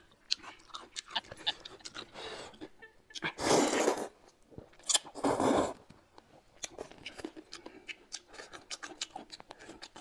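A person slurping twice from a bowl of hot-and-sour noodles (suan la fen), about three and five seconds in. Around the slurps comes chewing, with many small wet clicking mouth sounds.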